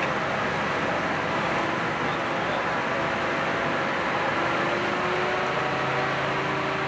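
Steady drone of idling fire engines and their pumps running. About five seconds in, a low steady hum with a higher tone above it comes in on top.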